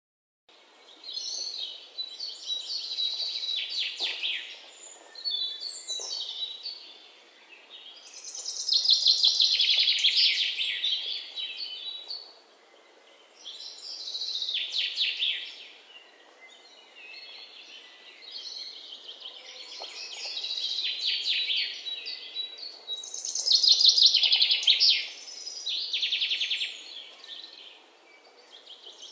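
A songbird singing: high-pitched phrases of rapid trills and chirps, each lasting a few seconds, with short pauses between them.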